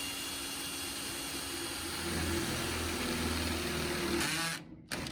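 Power drill boring a hole for a rivet nut, its motor running steadily. About two seconds in it rises in pitch and gets louder as it bites, and it stops near the end.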